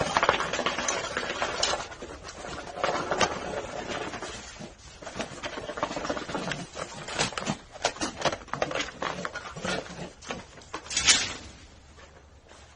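Animal noises with many short clicks and scuffling sounds; the loudest is a sharp noisy burst about eleven seconds in.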